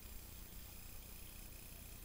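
Faint, steady background hiss with a low rumble and a faint high whine; no distinct sound event.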